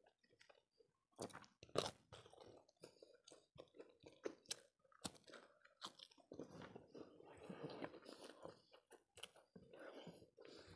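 Faint close-miked chewing of a mouthful of rice and fish curry, with sharp crunches and wet mouth clicks, busiest a little past halfway.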